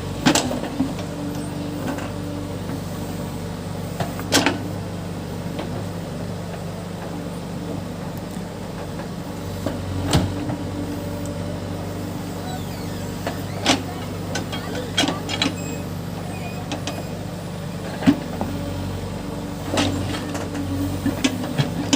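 Case backhoe loader's diesel engine running steadily under work, with sharp knocks every few seconds.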